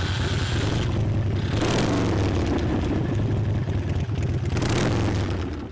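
An engine running steadily with a deep, even rumble that fades out at the very end.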